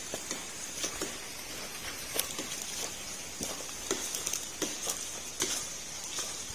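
Footsteps of people walking on a trail: irregular soft thuds, one or two a second, over a steady high hiss.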